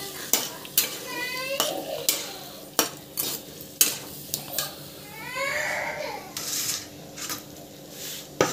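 Metal spatula scraping and knocking against a kadai as potatoes, moong dal and masala are stirred, with repeated sharp clicks over a low sizzle of the frying spice paste. A brief high rising cry-like sound comes twice, about a second in and again about five and a half seconds in.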